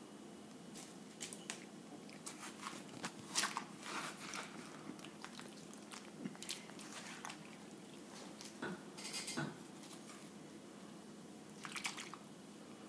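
Metal spoon scooping and scraping the wet flesh out of a halved watermelon: irregular crunches and squelches, with clusters of louder scrapes a few times, over a faint steady hum.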